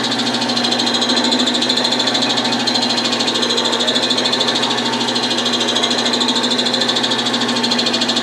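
Wood lathe running steadily with an even hum, spinning a small bottle-stopper blank while a paper towel buffs friction polish into it.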